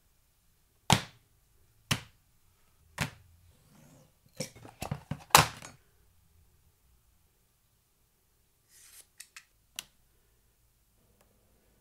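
Sharp clicks and taps of a thermoplastic Kydex sheet and a knife being handled on a workbench: three single taps about a second apart, then a quick run of louder clicks around five seconds in, and a few fainter clicks near the end.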